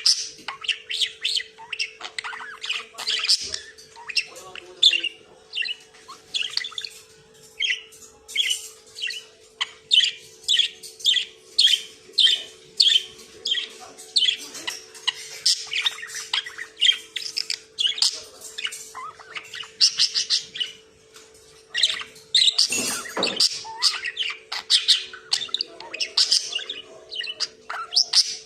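Budgerigar chattering: a continuous stream of short, rapid chirps and squawks, several a second, over a faint steady hum.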